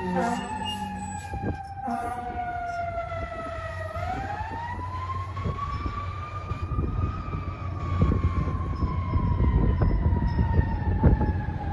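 Fire ladder truck's siren wailing: its pitch falls until about four seconds in, then rises and slowly falls again, over the rumble of the truck, which grows louder in the second half.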